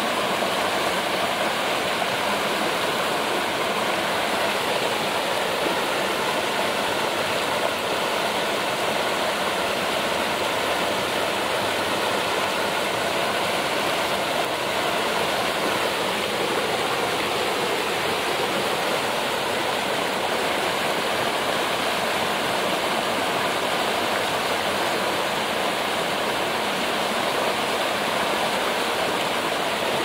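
Shallow stream flowing over rock: a steady rush of running water.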